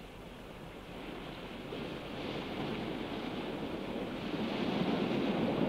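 Recorded ocean surf fading in: a steady wash of breaking waves that grows louder throughout.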